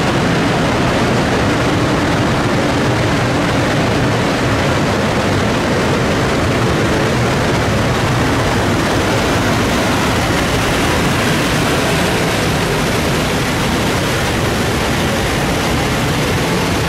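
EF510 electric locomotive running with a loud, steady noise that neither rises nor falls.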